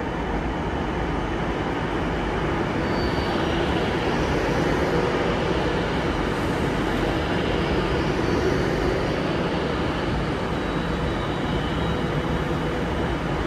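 Avanti West Coast Class 390 Pendolino electric train arriving along the platform. Its wheels give a steady rumble on the rails, with faint high whines over it.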